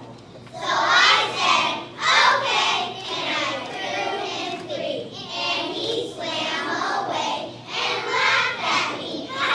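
A group of young children singing together in unison, their voices coming in about half a second in and going on with short pauses between phrases.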